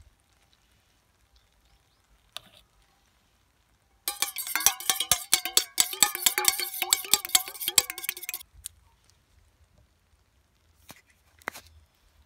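A fork beating raw egg in a stainless steel cup: rapid metal clinking with a ringing tone, starting about four seconds in and lasting about four seconds. A few single clicks come before and after.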